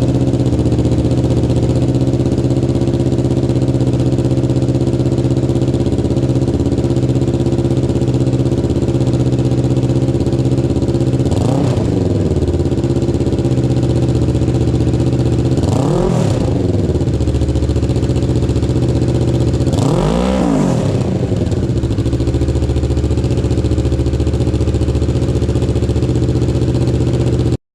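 2023 Kawasaki Ninja 650's parallel-twin engine idling steadily through its exhaust, with three short throttle blips that rise and fall in pitch about four seconds apart near the middle.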